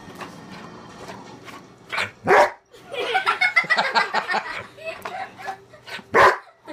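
Doberman barking: two loud, short barks, one about two seconds in and one near the end, with a busy stretch of quicker, smaller sounds between them.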